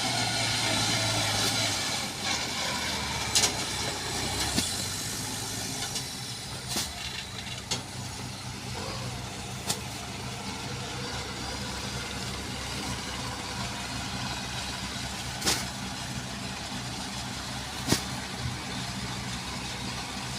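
A vehicle engine runs steadily at an even pace, a little louder for the first couple of seconds, with a few sharp clicks or knocks over it.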